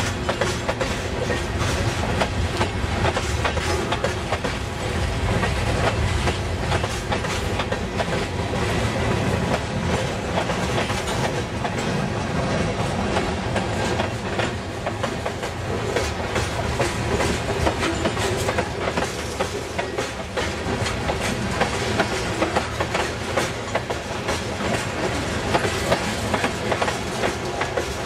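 Freight cars of a sand train rolling past close by: open hoppers, covered hoppers and a tank car. Their steel wheels click over the rail joints in a steady clickety-clack over a continuous rumble.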